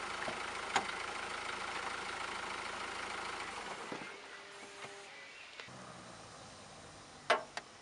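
A diesel van engine idling after an oil change, switched off a little under four seconds in. A few sharp clicks follow, the loudest near the end.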